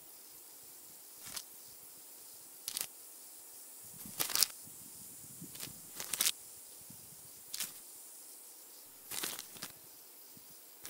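Short crisp rustles of stiff paper photo cards being laid down and swapped, about one every second and a half, over a steady hiss.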